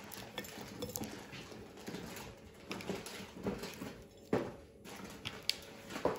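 Foil-wrapped chocolates being set down one by one on a porcelain cake stand: soft taps and wrapper rustles, with a sharper click about four seconds in.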